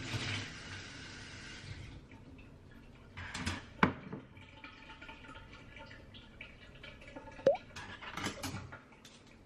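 Kitchen tap running as a bowl is rinsed, shutting off about two seconds in, followed by dishes clinking and knocking a few times as the bowl is handled.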